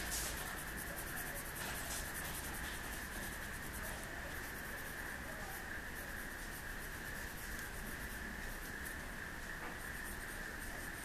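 Graphite pencil scratching on drawing paper in short, irregular strokes as a face is sketched, over a steady faint background hiss.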